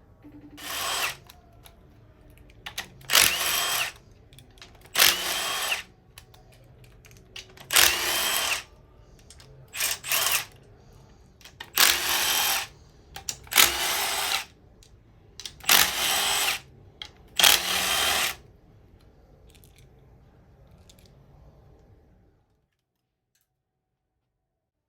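Power tool running in about nine short bursts, roughly one every two seconds, while fasteners come off the VQ35DE engine. There is a low room hum underneath, and the audio cuts to silence near the end.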